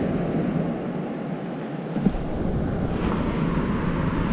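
Ocean surf breaking and washing up the beach, a steady rushing hiss, with wind buffeting the microphone; a brief knock about two seconds in.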